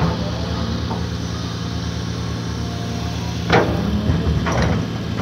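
Caterpillar 340D excavator's C9 diesel engine running with a steady drone. A sharp knock comes about three and a half seconds in, and a smaller cluster of knocks about a second later.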